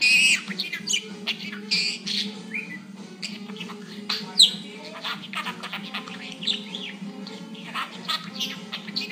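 Budgerigar chattering with quick sharp chirps and squawks scattered throughout, one louder chirp about four and a half seconds in, over a steady low hum.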